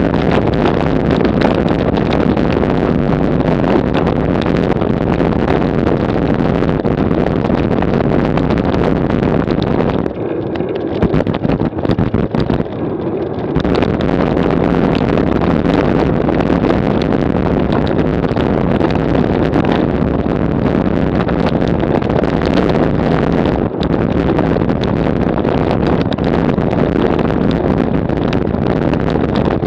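Road bike rattling and juddering over cobblestones, picked up by a Garmin VIRB action camera mounted on the bike: a loud, continuous clatter of rapid small impacts mixed with wind on the microphone. The clatter eases for about three seconds around ten seconds in, then resumes.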